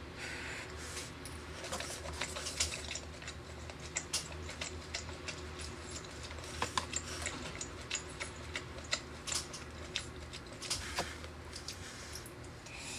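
Close-miked chewing of steak: many small, irregular wet mouth clicks and smacks, with the odd light tap of a metal fork on a wooden cutting board.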